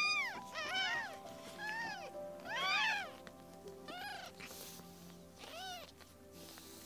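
Young kittens mewing: about seven short, high-pitched cries, each rising then falling in pitch, some overlapping one another, over background music with held tones.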